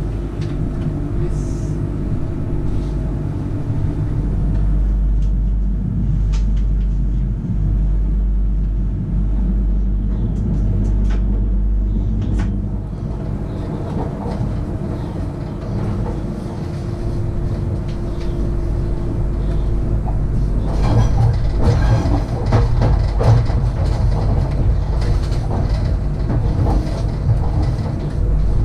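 Sydney Trains Millennium electric train heard from the driver's cab while running: a steady low rumble with a held motor hum. In the last third the wheels clatter more busily over the track.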